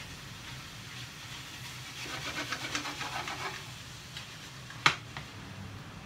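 Bean sprouts and pork sizzling in a frying pan while being stirred with chopsticks. About two seconds in comes a quick run of chopstick clatters against the pan, and near five seconds a single sharp knock as the pan is set back down on the induction hob.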